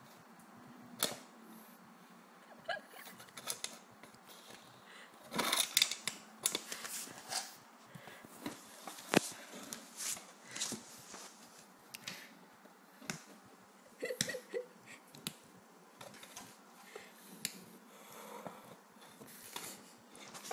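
Irregular clicks, taps and short scrapes of a large sulcata tortoise's claws and shell against a sliding-door track and wooden floorboards as it climbs over the sill and walks in, busiest about five to seven seconds in.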